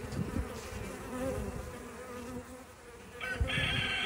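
Bees buzzing in a steady drone. A brighter, higher chime-like sound joins about three seconds in.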